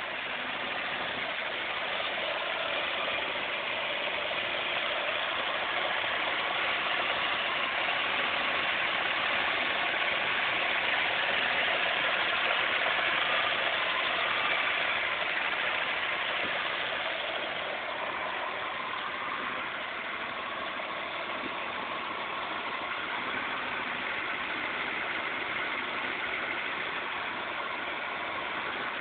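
Vauxhall Senator's 3.0-litre C30NE straight-six engine idling steadily, part warmed up after about five minutes of ticking over but not yet at full temperature. It gets a little louder midway through, then eases back.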